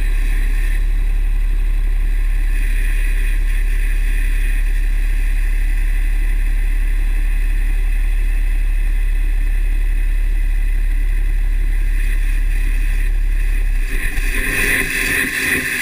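Steady low drone of a 2009 Dodge Ram's 6.7 Cummins inline-six turbo-diesel truck, with a hissing band of higher sound over it. Near the end the low drone drops away and the higher hiss grows louder and rougher.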